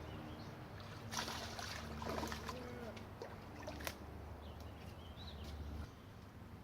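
Brief splashes of water, about one and two seconds in, from a hooked fish being fought at the boat, over a low steady rumble, with a sharp click near four seconds.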